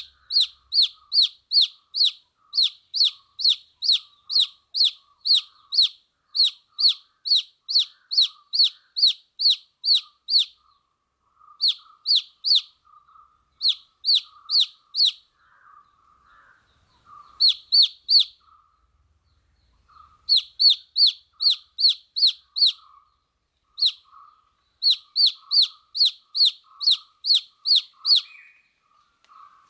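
Baby chicks peeping: one loud chick repeats sharp, falling peeps nearly three times a second, in runs broken by short pauses. Fainter, lower cheeping goes on underneath.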